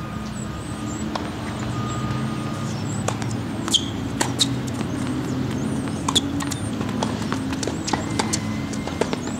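Tennis ball struck by rackets and bouncing during a rally: a scatter of sharp pops starting about three seconds in, a few with a short ring, over a steady low engine drone.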